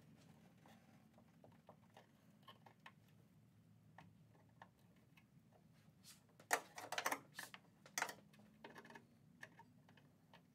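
Small clicks and clatters of hand tools and metal parts being handled while working on battery cables, with a burst of louder sharp clicks about six to eight seconds in, over a faint steady hum.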